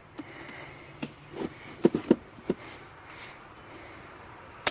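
Light knocks and clicks from parts being handled as the Jeep XJ's air box intake is pushed back into place, with a sharp click near the end.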